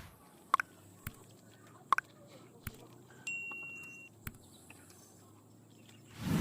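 Eating a crunchy fried-lentil snack out of a packet: a few sharp clicks and crackles, the loudest two about a second and a half apart. A brief high steady tone sounds about three seconds in.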